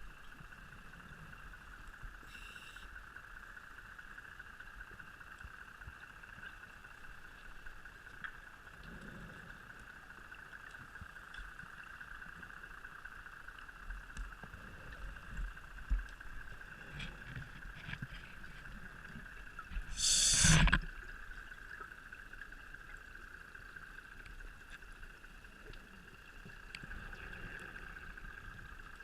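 Underwater ambience with a steady high hum throughout. About two-thirds of the way in comes a loud rush of scuba regulator exhaust bubbles lasting under a second, with a few soft bubble gurgles around it.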